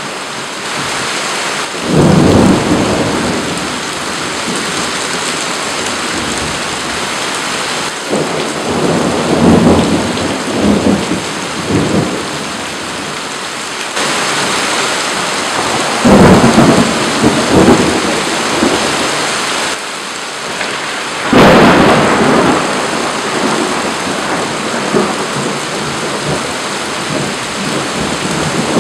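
Thunderstorm: steady heavy rain hissing down, with about four rolls of thunder. The loudest thunder breaks suddenly about two seconds in, just past halfway and about three-quarters through, with a longer rumbling roll in between.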